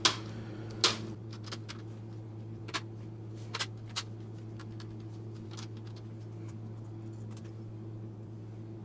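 Plastic screen bezel of a Lenovo B570 laptop being pressed onto the lid along its edges, its clips snapping into place: a series of sharp clicks, the two loudest in the first second, then fewer and softer ones that stop about halfway through. A steady low hum runs underneath.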